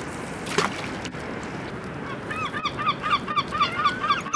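Birds calling in a fast run of short repeated calls, about five a second, starting about two seconds in and overlapping as if from more than one bird, over a steady outdoor background noise.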